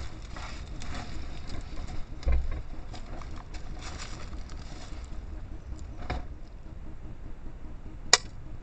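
Faint rustling and scattered light ticks through a trail camera's microphone, with a dull low thump about two seconds in and one sharp click near the end.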